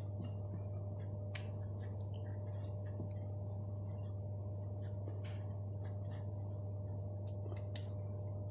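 Close-up eating sounds: crisp pizza crust being chewed, with many short irregular crunching clicks, over a steady low hum.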